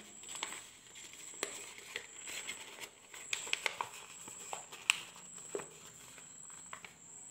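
A sheet of A4 paper rustling and crinkling in the hands as it is folded and shaped into a paper cap, with scattered sharp crackles.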